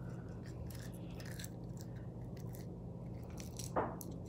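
Faint soft clicks and scraping of sticky slime being picked off a block of ice with the fingers, over a steady low hum, with one brief louder sound near the end.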